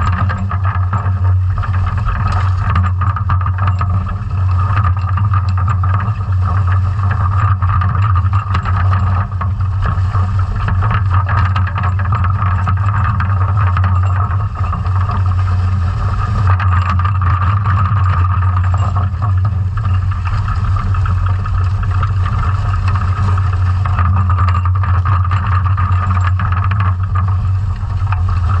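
Underwater noise of a scallop dredge under tow along the sea floor: a steady, loud low hum with a fainter higher drone over it, and constant fine crackling.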